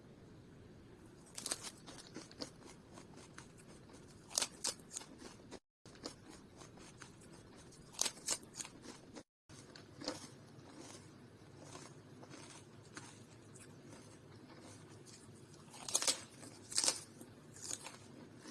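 Scattered short, crisp crunching or snipping sounds over a low background. A few are louder, about four seconds in, about eight seconds in, and twice near the end, and the sound drops out briefly twice.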